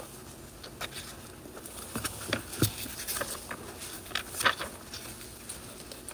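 Paper pages rustling and flicking as a Bible is leafed through, heard as scattered light taps and short swishes.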